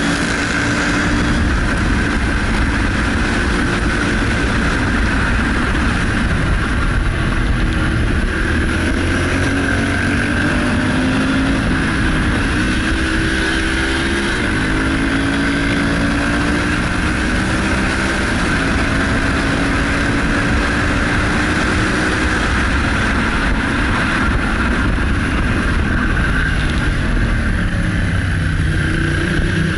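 Motorcycle engine heard from on board while riding, its pitch repeatedly rising and falling with throttle and gear changes, over a constant rush of wind noise.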